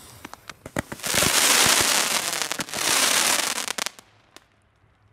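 Weco Elysium firework battery set off in a complete ignition, its tubes firing together. A few sharp cracks come first, then about three seconds of dense crackling rush that stops suddenly, and one last pop.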